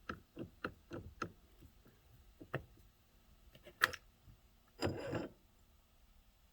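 Small hard clicks from handling plastic steering-column parts: a quick run of about four clicks a second, then two single clicks, the second louder, and a short rustle about five seconds in.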